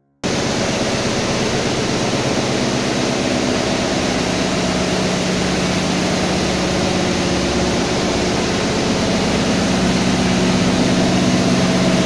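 Stainless-steel tunnel microwave sterilization machine running: a loud, steady rushing noise with a constant low hum underneath, cutting in abruptly just after the start.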